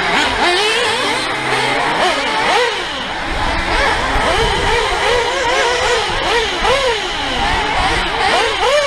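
Several radio-controlled off-road racing cars revving, their motors' pitch rising and falling over and over as they accelerate and brake through the track's corners.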